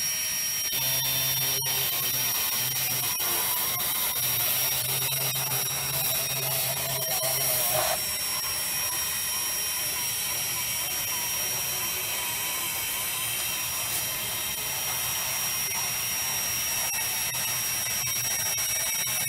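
Electric drive motors of a small pipe-crawling robot running with a steady high-pitched whine as it travels through the tube, with a lower hum coming and going in the first half.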